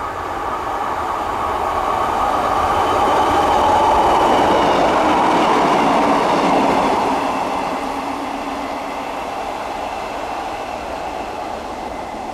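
Network Rail Class 950 track recording unit, a two-car diesel multiple unit, passing close by. Its engine and wheel noise builds to a peak about four to seven seconds in, then fades as the train runs away.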